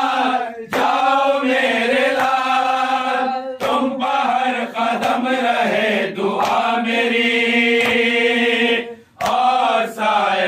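Unaccompanied group of men chanting an Urdu nauha (mourning lament) in unison, with drawn-out held lines and short breaks between phrases. Sharp slaps of hands beating on chests (matam) cut through the chanting every second or two.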